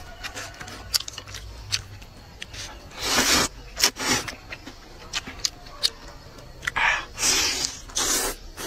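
A man slurping noodles from a bowl in several short, noisy bursts, with chewing and small clicks in between.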